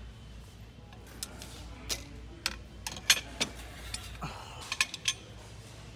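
Large steel adjustable wrenches clinking against each other and their metal display hooks as they are handled, a dozen or so irregular sharp clinks starting about a second in.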